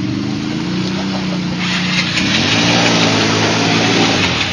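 Quad bike (ATV) engine running and revving as the quad churns through deep muddy water. From about a second and a half in, water splashing joins it, and the engine pitch rises shortly after.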